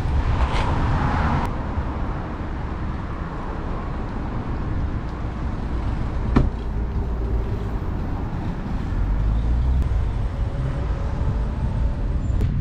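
Steady low outdoor rumble of road traffic and wind on the microphone, with a brief noisy burst near the start and a single sharp click about six seconds in.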